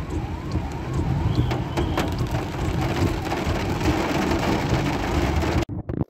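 Heavy rain falling on a car's roof and windscreen, heard from inside the car, with many sharp drop ticks over a steady low rumble of the car. The sound cuts off abruptly near the end.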